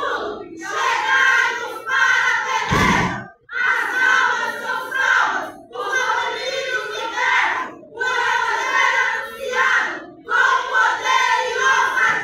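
A group of women's voices chanting a recitation in unison, in loud phrases a second or two long with short pauses between them. A heavy thump comes about three seconds in.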